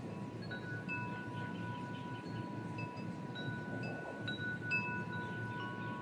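Wind chime ringing in the breeze: several tubes struck at irregular moments, each clear tone ringing on for seconds, over a low steady background rumble.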